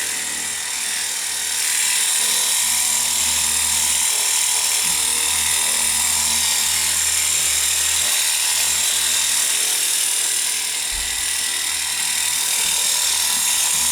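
Cordless 20-volt lithium-ion pressure washer running, its electric pump motor giving a steady whine over a hiss. The level eases slightly just after the start and again about ten to twelve seconds in.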